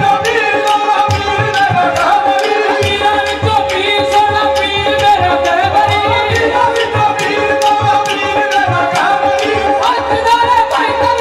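Qawwali performed live: a male lead voice sings over a steady held drone note, with tabla and rhythmic hand-clapping from the chorus.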